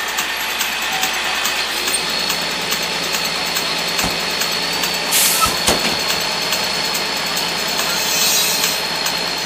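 Fire truck's diesel engine running steadily at idle after the truck pulls up, with a few knocks and a short hiss about five seconds in.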